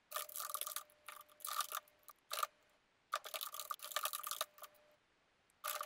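Typing on a computer keyboard: rapid keystroke clicks in several quick runs separated by short pauses.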